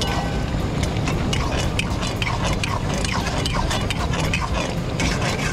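Flat metal spatula scraping and clattering rapidly and irregularly against an iron karahi (wok) as thick mutton curry is stirred, over a steady low rumble.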